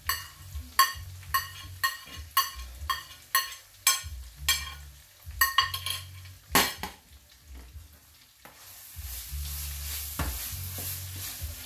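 A metal spoon knocking and scraping against a ceramic plate, about two knocks a second, as chopped sweet peppers and onions are knocked off into a frying pan, with one louder knock about six and a half seconds in. Then steady sizzling from the pan as the vegetables start to fry with the minced beef.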